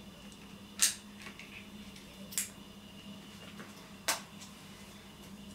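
Three short, sharp clinks about a second and a half apart over a faint steady hum, like dishes or cutlery being handled off to the side.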